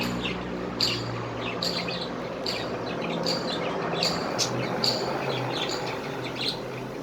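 Caged pet birds chirping: short, high chirps repeating several times a second, over a low steady hum.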